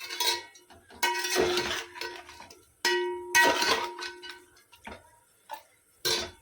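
A metal spoon scraping and knocking against a metal cooking pot in several clattering bursts. The pot rings on after the louder strikes.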